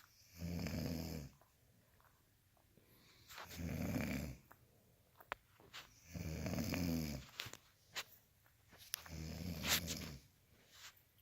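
Snoring: four snores, each about a second long, coming about every three seconds, with a few faint clicks between them.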